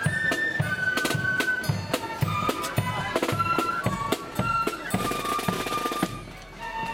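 Marching flute band playing a tune: flutes carry the melody over snare and bass drums beating steadily. Near the end the drumming thins out under a held flute note.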